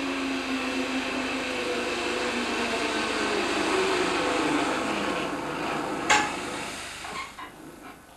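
Small material cableway running as a hay load comes down the wire rope: a steady whirring with a pitch that rises and falls, then a single sharp clank about six seconds in as the load reaches the landing, after which the running sound dies away.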